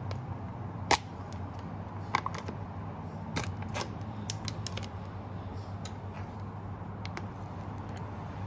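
The plastic lid of a tub of gochujang (Korean hot pepper paste) snaps open with a sharp click about a second in. A spoon then clicks against the plastic tub several times as paste is scooped out, over a steady low hum.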